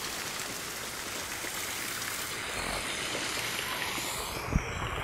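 Steady outdoor background hiss, with one soft low knock near the end.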